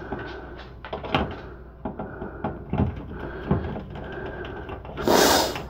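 Hand screwdriver backing a screw out of a motherboard in a metal PC case: scattered light clicks and ticks of the bit and fingers on metal, then about five seconds in a short, loud scraping rattle.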